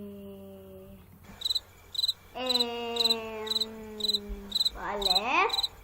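Cricket chirping in short, evenly spaced bursts about twice a second. Under it a voice holds long, drawn-out notes and ends with a rising slide near the end.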